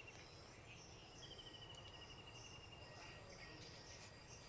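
Near silence with faint insects trilling: one long, slightly falling trill starting about a second in and lasting nearly two seconds, over faint higher chirping.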